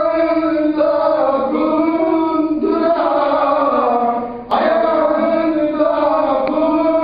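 A man's voice singing unaccompanied in long, held notes that glide slowly in pitch, in a chant-like style. The singing breaks off briefly and starts again about four and a half seconds in.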